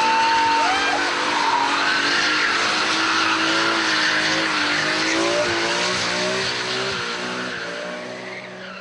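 BMW M3 E46's straight-six engine held at high revs while drifting, the revs wavering up and down, with tyres squealing and skidding throughout. The sound fades out over the last couple of seconds.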